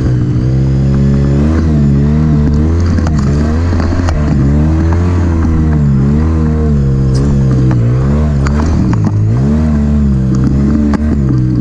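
ATV engine running under load up a steep rocky trail, its pitch rising and falling again and again as the throttle is worked, with stones and gravel clicking and crackling under the tires.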